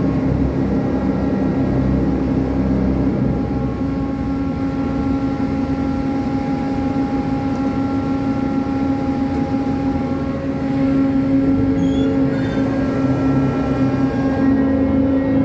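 Cargo crane machinery working a clamshell grab in a wheat hold: a steady mechanical drone with a constant hum over a rumble, growing a little louder after about ten seconds as the grab is closed.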